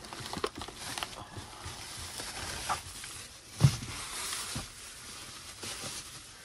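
Plastic grocery bags rustling as they are picked up and handled on a car's back seat, with one thump a little past halfway.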